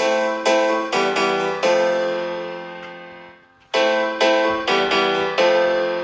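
Background piano music: a slow run of struck chords, each left to ring and fade, with a short break a little past halfway.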